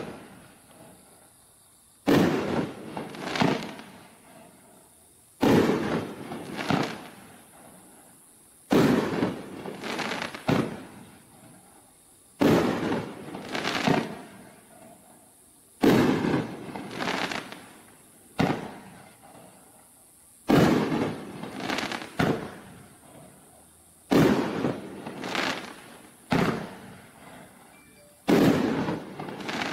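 A nine-shot consumer fireworks cake, the Neon Blaster, firing shot after shot every three to four seconds. Each shot is a pair of sharp bangs about a second apart, with a decaying rumble after each.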